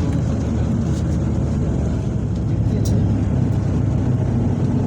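An engine running with a steady, loud low rumble.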